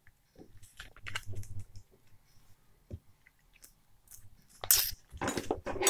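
Mayonnaise squeezed from a soft pouch onto borscht, then a metal spoon stirring it in a glass bowl: scattered small clicks and short wet noises, with the busiest stretch near the end.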